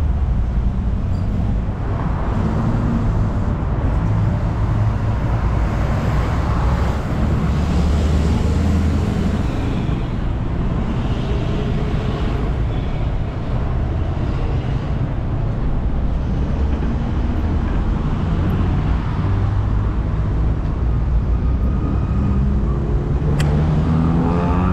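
Steady road traffic: car and truck engines running close by. Near the end, one vehicle's engine rises in pitch as it accelerates away.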